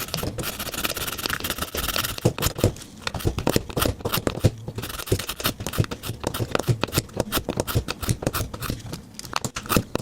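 Swiss Army Knife blade drawn again and again through the ceramic slot of a V-profile pocket sharpener: a quick, irregular series of short scraping strokes, several a second. This is the fine honing stage after the carbide slot.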